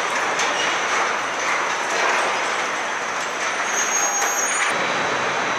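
Steady din of truck assembly plant machinery, with a brief high whine about four seconds in.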